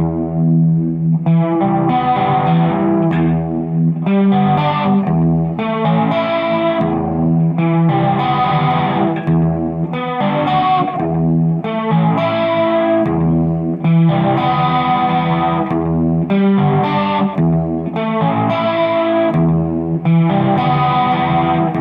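Distorted electric guitar through effects playing a sustained chord progression, the chords changing every second or two; it starts abruptly.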